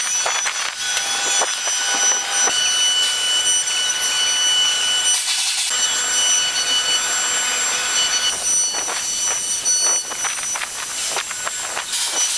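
5-axis CNC router cutting wood: a steady high spindle whine over a rasping cutting noise, briefly changing about halfway through.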